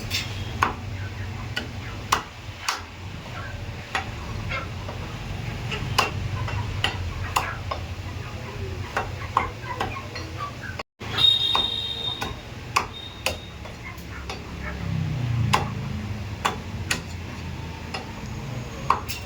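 Knife chopping through chicken meat: repeated sharp knocks, roughly one or two a second, over a steady low hum. The sound cuts out briefly about eleven seconds in.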